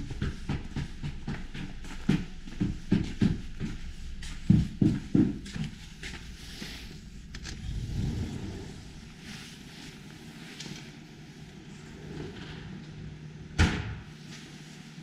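Footsteps of shoes on a snow-dusted concrete floor, about two steps a second, fading after about five seconds into softer shuffling. A single sharp knock sounds near the end.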